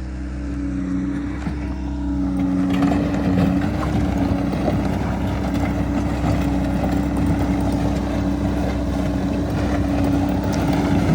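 Bobcat skid steer's diesel engine running steadily, growing louder and rougher about three seconds in as the machine works the dirt.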